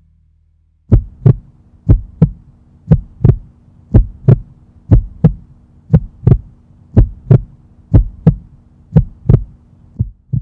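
Heartbeat sound effect: a double thump about once a second, ten beats in all, starting about a second in, over a faint steady low hum.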